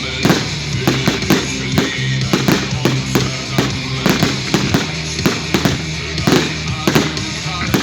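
Fireworks going off in quick, irregular bangs, two or three a second, over loud music with a steady bass.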